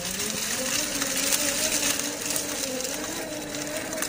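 Whine of the MST CFX-W RC crawler's brushed 550 electric motor and gears as it creeps along, the pitch wavering with the throttle. Dry leaves crackle and rustle under the tyres.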